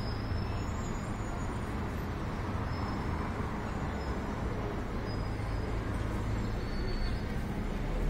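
Steady outdoor city ambience: a low, constant hum of road traffic and vehicle engines across an open square, with a few faint, brief high tones over it.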